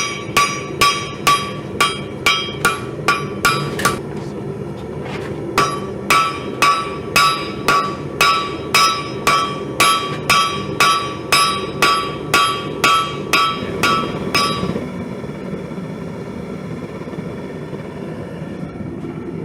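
Hammer striking steel on an anvil, about two ringing blows a second, with a short break around four seconds in. The hammering stops about fifteen seconds in, leaving a steady low roar.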